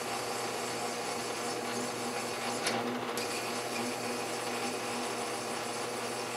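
Metal lathe running slowly, around 400 RPM, while a large twist drill in the tailstock cuts into a spinning brass workpiece: a steady motor hum under the scraping of the cut, with one short tick near the middle.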